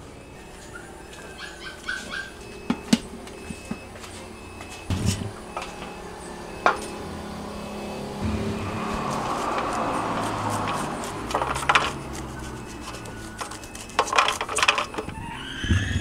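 Knife blade clicking and scraping corn kernels off the cob onto a stainless-steel tray. About eight seconds in, a few seconds of running water as an ear of purple corn is rinsed in a steel sink, then more sharp knife clicks near the end as kernels are cut from the cob.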